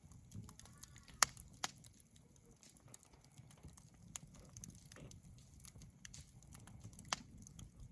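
Wood fire burning, with sharp crackling pops every second or few; the loudest come about a second in. A low, steady rustle of the burning runs underneath.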